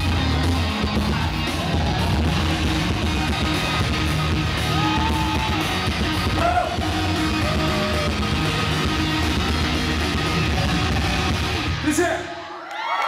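A live rock band plays the song's closing section at full volume, with guitar and a voice yelling over it. The band stops about twelve seconds in, and the audience starts screaming and cheering.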